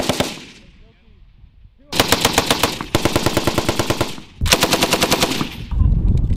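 M240 7.62 mm belt-fed machine gun firing in rapid bursts of about ten shots a second: the end of one burst, then after a gap of nearly two seconds a long burst of about two seconds and, after a short pause, another of just over a second. A low rumble follows near the end.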